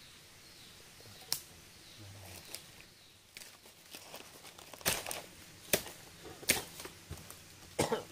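A series of sharp crackles and rustles, about five of them spread out, the last one fuller and louder.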